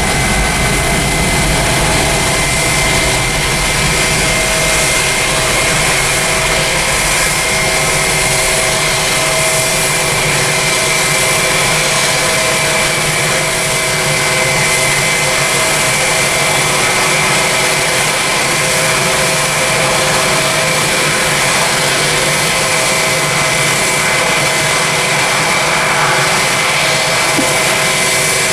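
Boeing 777 jet engines at takeoff thrust: a steady, loud jet roar with a thin high whine running through it.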